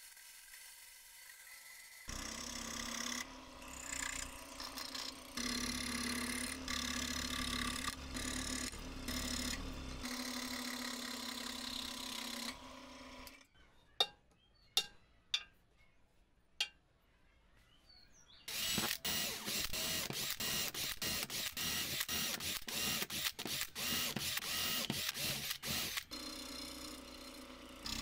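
A small benchtop bandsaw runs and cuts through a block of wood for about ten seconds. After a quieter stretch with a few sharp taps, a scroll saw cuts thin wood with rapid, evenly repeating strokes of its blade.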